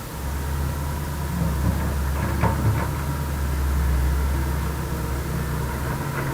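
Heavy diesel engine running steadily with a low drone, with a few short clanks about two and a half seconds in.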